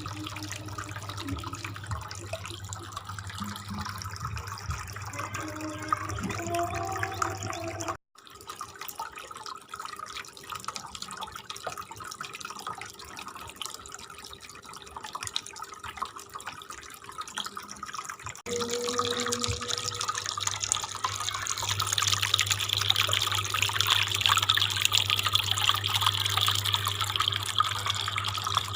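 Water from a small homemade cement waterfall fountain, pumped by a mini water pump, trickling and splashing down into its basin. A low steady hum runs under parts of it. The sound changes abruptly twice, and the splashing is louder and hissier in the last third.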